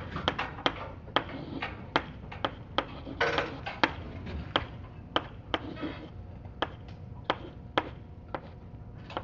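Chalk writing on a blackboard: a string of sharp, irregular taps as the chalk strikes the board, about two or three a second, with a couple of short scraping strokes.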